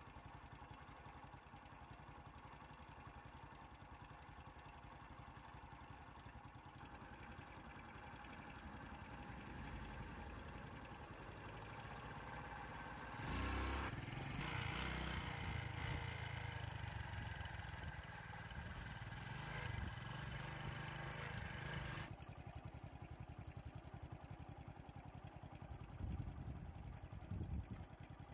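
A motor vehicle's engine running at idle, growing louder for about eight seconds in the middle and then dropping back, with a couple of sharp knocks near the end.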